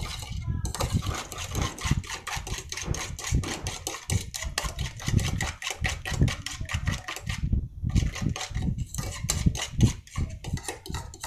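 A metal fork whisking a thick Milo and sugar mixture by hand in a ceramic bowl, clicking rapidly against the bowl at about five or six strokes a second, with two short pauses, one near the start and one about two-thirds of the way through.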